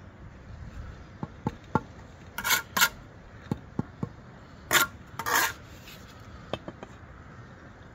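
Steel brick trowel knocking bricks into line: light sharp taps, about three at a time in three groups. Twice, about two and a half and five seconds in, comes a louder rough scraping of the trowel over brick and mortar.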